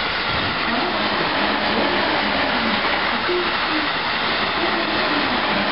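Electric commuter train running past on a nearby track: a steady noise of wheels on the rails.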